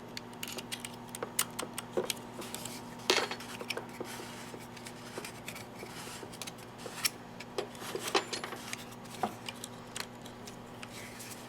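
Small metallic clicks, taps and rattles at irregular moments as a jigsaw blade and the jigsaw's blade clamp are handled, over a faint steady hum.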